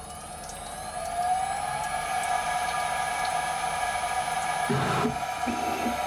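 DMC2 Mini desktop CNC mill whining as a 4 mm carbide end mill cuts 304 stainless steel under coolant spray, on an adaptive toolpath. The whine climbs in pitch and grows louder over the first second, then holds steady, with a couple of short, lower sounds about five seconds in.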